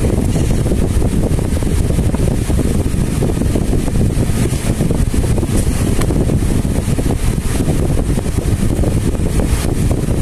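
Steady low rumble of air buffeting the microphone, with a few faint crinkles of a paper leaflet being handled.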